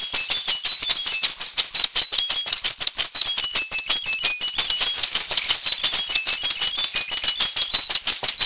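Music: a quick, tinkling high-pitched tune stepping up and down over a fast, even rattling beat.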